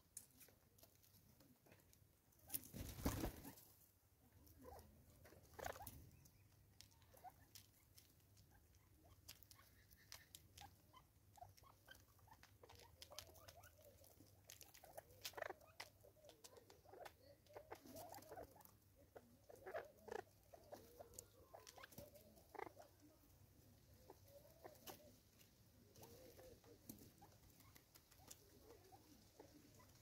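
Natal spurfowl feeding at seed: many faint small clicks and taps of pecking and scratching, with soft low murmuring calls through the middle. One brief louder rustle about three seconds in.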